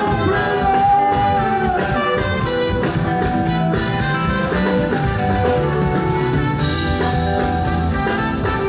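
Instrumental music at a steady volume, with held melodic notes over a bass line.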